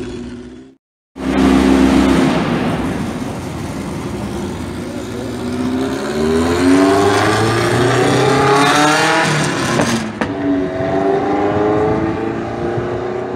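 Car engine accelerating, heard from inside a car on a race circuit, with steady road and wind noise; the engine note climbs in pitch twice. A brief silent gap near the start marks a cut.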